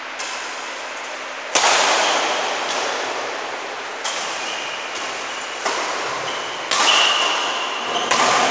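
Badminton rackets striking a shuttlecock back and forth in a doubles rally, about seven sharp smacks at roughly one-to-one-and-a-half-second intervals, each ringing on in a large echoing hall.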